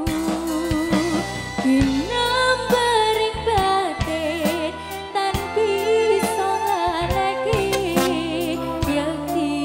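A Javanese female singer (sinden) singing a melodic line with vibrato through a microphone, over live instrumental accompaniment with sustained low bass notes and regular percussive beats.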